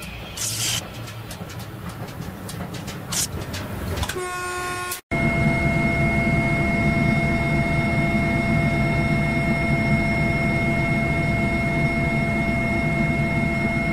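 A short toot that cuts off abruptly, then a narrow-gauge locomotive running under way, heard from inside its cab: a steady low engine drone with a constant high whine over it.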